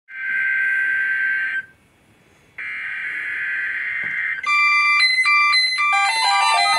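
Two bursts of EAS SAME header data, a harsh electronic screech about one and a half to two seconds long each, separated by about a second of near silence. About four and a half seconds in, music made of stepped electronic notes takes over.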